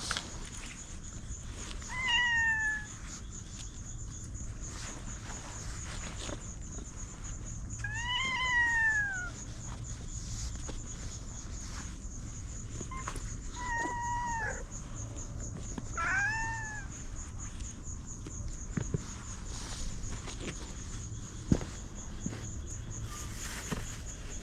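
A kitten meowing four times, high-pitched calls that rise and fall; the second is the longest.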